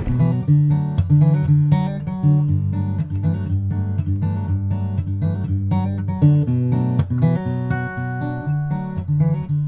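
Background music led by acoustic guitar, plucked and strummed notes over a steady low bass line.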